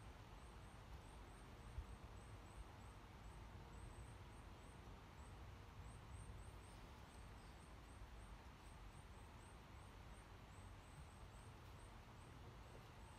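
Near silence: a faint low outdoor rumble with thin, high chirps repeating a couple of times a second.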